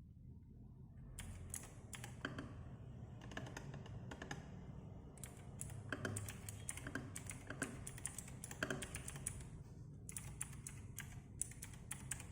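Typing sound test on a Skyloong GK84S 75% mechanical keyboard with PBT keycaps: a fast, uneven run of key clacks that starts about a second in, with a short pause about ten seconds in.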